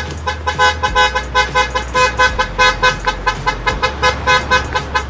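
A car horn beeping in rapid, evenly repeated toots, about four a second, all at one pitch, over a low hum.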